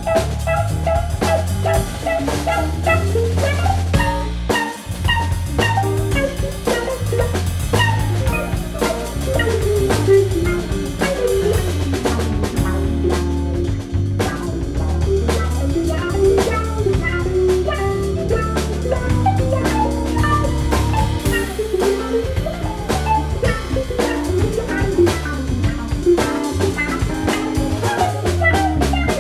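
Live jazz trio jamming: a guitar and a keyboard playing melodic lines over a keyboard bass line, with a drum kit keeping time on drums and cymbals.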